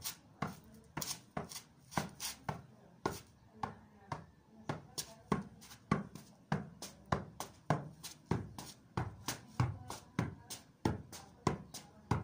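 Soccer ball being juggled: a steady run of thuds as it is kicked up again and again, about three touches a second.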